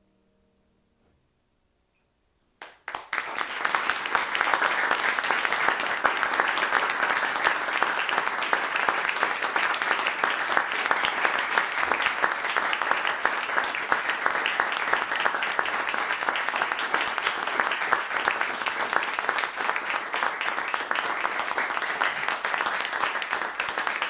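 The last harpsichord notes fade away. About three seconds in, an audience breaks into applause, which keeps up at an even level.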